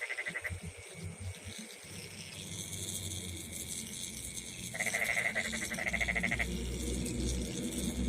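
Frogs calling in a night rice paddy, rapid pulsed calls in bouts of about a second and a half, with insects trilling steadily behind. A low rumble comes in about halfway through.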